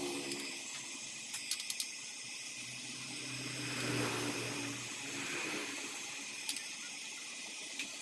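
Oxy-acetylene (carbide) welding torch flame hissing steadily as it melts aluminium scrap in a small can crucible, with a few sharp ticks and a low hum that swells and fades around the middle.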